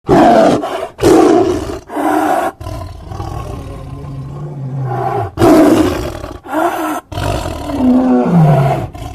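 Gorilla roaring: three loud roars about a second apart, then a lower, steadier growl for a couple of seconds, then more roars ending in a cry that falls in pitch.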